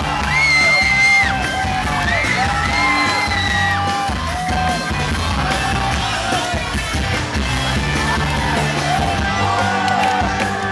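Live pop-rock band music in a large hall: drums and bass under a held, sliding vocal line, with a crowd yelling along.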